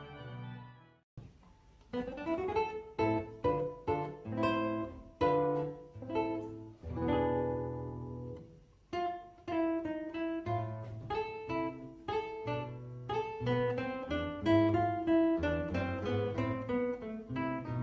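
Two nylon-string classical guitars playing a duet: plucked melody notes over bass notes, with fuller chords now and then. It begins about two seconds in, after the tail of earlier music fades into a short pause.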